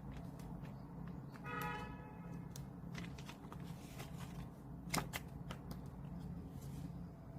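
Faint rustling and scattered clicks of album packaging and photocards being handled, with a sharp click about five seconds in and a brief pitched sound about one and a half seconds in.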